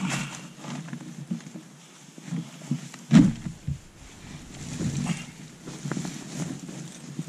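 Rustling of bedding and clothing and creaking of an Intex inflatable air mattress as a person shifts about and lies down, in irregular bursts with one louder bump about three seconds in.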